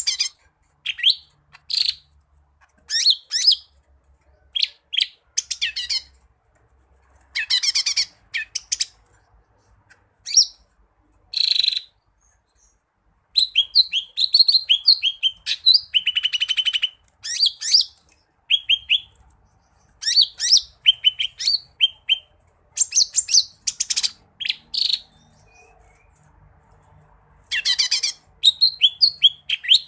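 Green leafbird (cucak ijo) singing in loud bursts of rapid chirps, whistled notes and a buzzy trill, with pauses of a second or two between phrases. This is the rich, mimicry-filled song of a bird in full voice.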